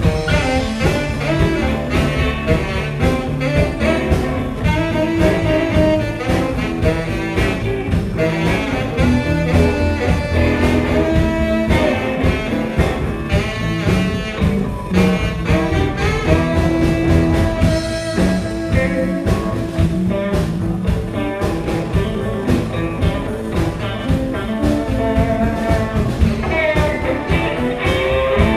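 Live blues band playing: a saxophone takes the lead with held, bending notes over electric guitar, bass and drums.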